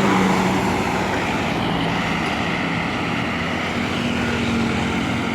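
A large bus driving past close by: steady engine and road noise, with no horn tune sounding.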